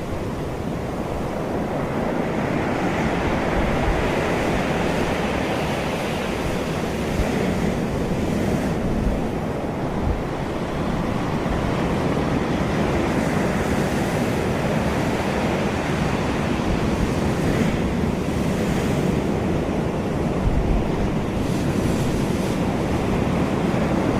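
Sea waves washing onto a beach in a continuous roar of surf, swelling and easing, with wind gusting on the microphone.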